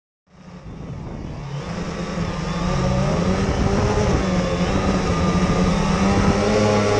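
Quadcopter motors and propellers starting up and running: a buzzing hum that comes in suddenly and grows louder over a few seconds. Several close pitches waver up and down as the motors change speed, with a high hiss above them.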